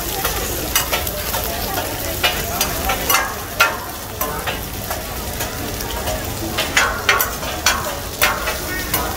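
Crispy egg omelettes sizzling in oil on a large flat griddle, with a steady hiss. Two metal spatulas scrape and clink against the griddle at irregular moments, in short clusters.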